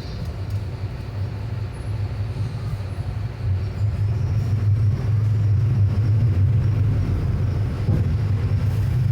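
Mercedes-Benz OF-1721 BlueTec 6 bus's four-cylinder diesel engine running with a steady low drone, growing louder about three and a half seconds in as it takes more load.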